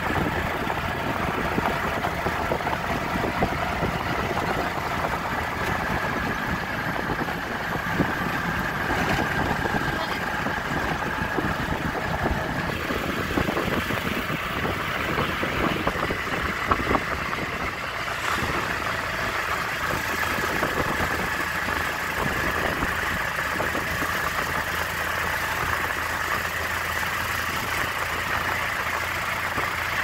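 Small engine of a three-wheeled auto-rickshaw running steadily on the move, with road and wind noise.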